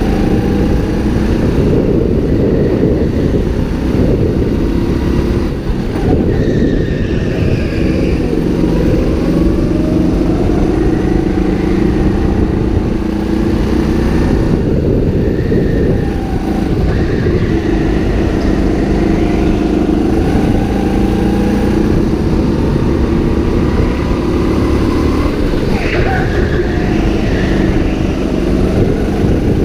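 Go-kart engine running at race pace under the driver, its pitch rising and falling through the corners, with the engines of other karts on the track mixed in.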